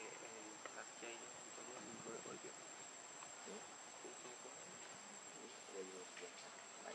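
Faint, steady high-pitched drone of insects in the trees, with faint distant voices murmuring underneath.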